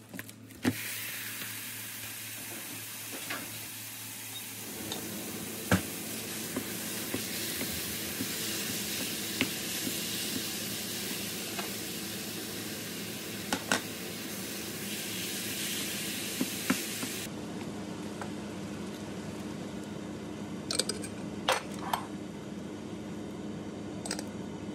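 Ground turkey sizzling in a hot nonstick frying pan, the hiss starting suddenly as the meat goes in, with occasional knocks of a wooden spatula against the pan. About two-thirds of the way through the sizzle drops away to a quieter stirring with a few knocks, over a steady low hum.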